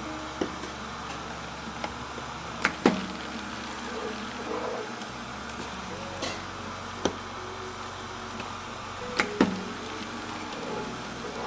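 Handling clicks and metal clunks at a countertop can seamer as a can is set on its base plate and the lever is pulled to lift it into the seaming head: scattered sharp knocks, the loudest in two pairs about three seconds and nine seconds in, over a steady low hum.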